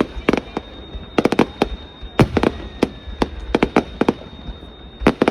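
Fireworks display: sharp bangs of bursting aerial shells going off in quick irregular clusters, several a second, over a steady low rumble.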